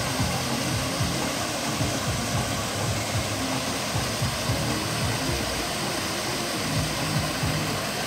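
Steady rush of water pouring from a pool's artificial rock waterfall, with music playing underneath.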